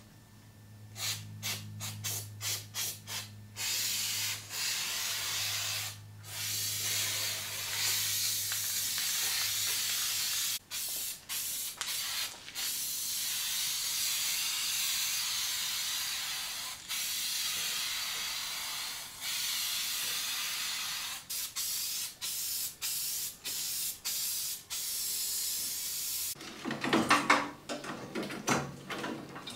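Aerosol spray can spraying onto the inside of a steel car fender: a run of short spurts, then long steady sprays lasting several seconds, then more short spurts. Near the end it gives way to louder clattering handling noises.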